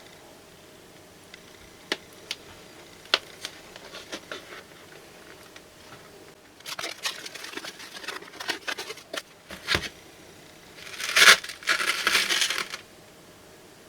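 Hands handling plastic wrapping: a few sharp clicks and taps, then crinkling, and near the end a louder spell of crinkling or tearing.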